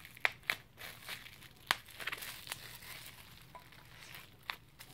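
Plastic bubble wrap being crinkled and pulled off a soda can, with a scatter of sharp crackles.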